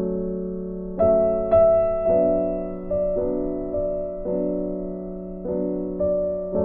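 Slow background piano music: single notes and chords struck roughly once a second, each fading away, over a sustained low note. The loudest notes come about a second in.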